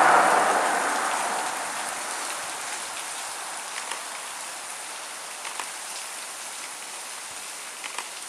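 Rushing water of a waterfall, a steady hiss loud at first and falling away over the first couple of seconds to a lower, even level, with a few faint ticks of splashing.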